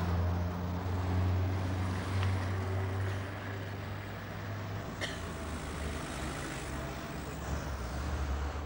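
Road traffic with a motor vehicle's engine running, a steady low rumble that eases about halfway through, with a single sharp click about five seconds in.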